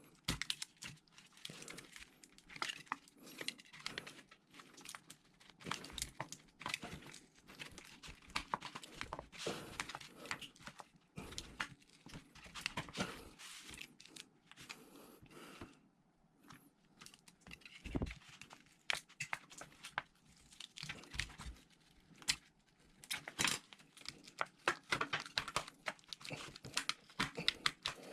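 Irregular crinkling and tearing of thin plastic, with many scattered small clicks.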